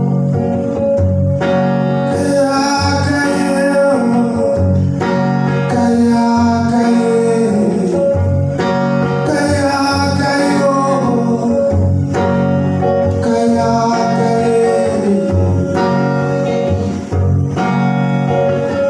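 A band song: a singer's voice carrying a melody over plucked and strummed guitar accompaniment.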